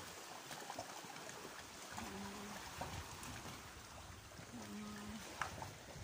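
Sea water washing and trickling among rocks on the shore, a steady soft hiss. A short low hum, like a voice, comes twice, about 2 and 5 seconds in.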